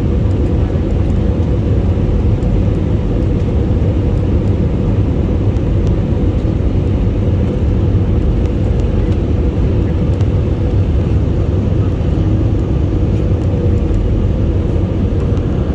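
Airplane noise: a steady low rumble with a faint steady hum above it, unchanging throughout.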